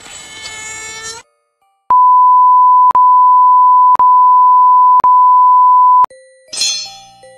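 A loud, steady electronic beep tone held on one pitch for about four seconds, broken by tiny clicks about once a second. It comes between two short ringing, chime-like music hits, one at the start and one near the end.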